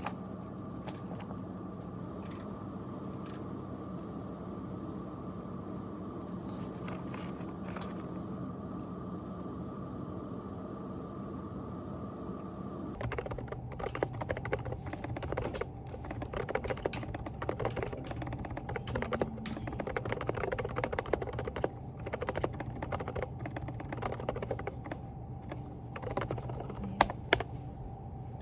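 Typing on a Groovestone GV10 mechanical keyboard fitted with hand-lubed silent Coral switches (38 g). Keystrokes are sparse at first over a steady hum; from about halfway through they come quickly and continuously.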